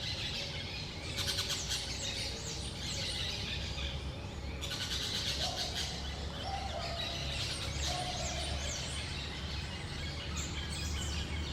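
Small parakeets calling with quick, high chirping chatter, along with a few short, lower, steady notes about halfway through.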